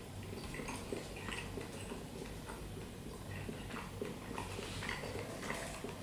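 Quiet eating noises: chewing, with scattered light clicks from a fork against a pasta carton, over a low steady hum.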